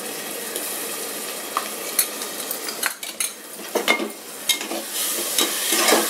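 Onion-tomato masala sizzling in oil in an aluminium pressure cooker, with sharp clinks and taps of a spoon against a steel bowl as ginger-garlic paste is scraped in. About five seconds in, a spatula starts scraping and stirring the masala in the pan, and the noise gets louder.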